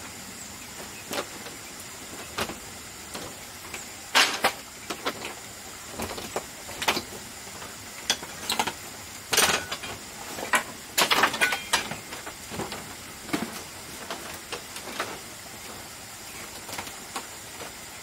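Irregular knocks, clatters and scrapes of bamboo being handled on a bamboo floor, with a few louder, longer scrapes about four, nine and eleven seconds in.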